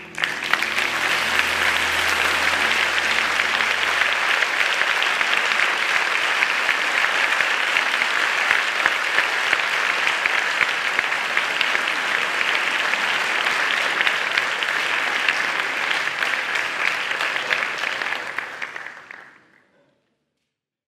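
Concert hall audience applauding steadily, with a low held note from the stage dying away under it in the first few seconds; the applause fades out near the end.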